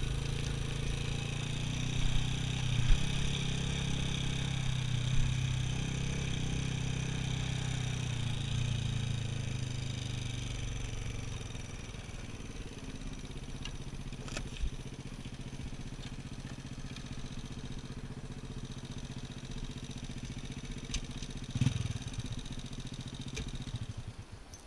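Honda Astrea underbone motorcycle's small four-stroke single engine running at low speed over a rough gravel track, with a few knocks from the bumps. About halfway through it drops to a quieter, lower idle as the bike rolls to a stop.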